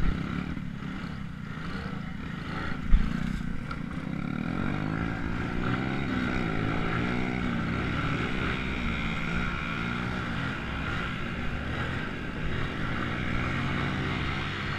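ATV engines running under throttle on a dirt trail, the engine pitch wavering up and down as the riders speed up and ease off. A single sharp knock comes about three seconds in.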